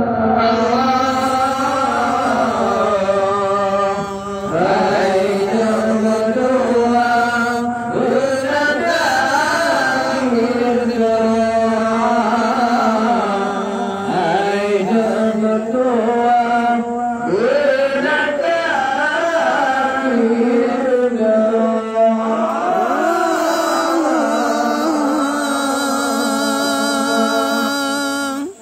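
Acehnese qasidah sung in long, ornamented melodic phrases that glide and bend, over a steady low held note.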